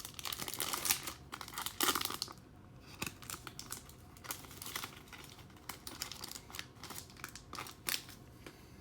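Foil wrapper of a baseball card pack being torn open and crinkled for about two seconds, then the stack of cards being handled with scattered light clicks and rustles.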